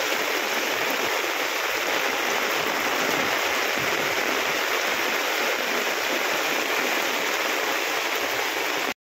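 Rainwater rushing in full flow, a steady even rush of water that cuts off abruptly near the end.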